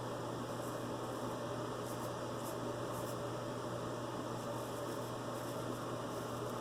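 Steady hum and hiss of room noise, with a few faint, short scratches of a wedge straight razor cutting stubble; the razor runs quietly, without singing.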